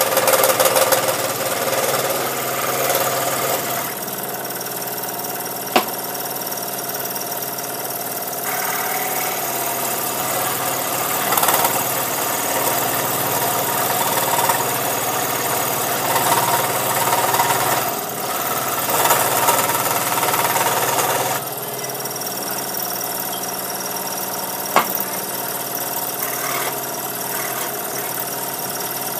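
Scroll saw running steadily as a piece of wood is fed into the blade, its loudness rising and falling with the cut. Two sharp single clicks, about six seconds in and again about five seconds before the end.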